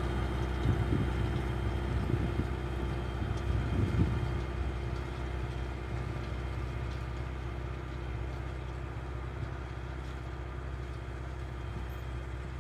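MB-trac 900 turbo's turbocharged six-cylinder diesel running steadily under load while pulling a cultivator, fading slowly as the tractor moves away. A few dull knocks come in the first four seconds.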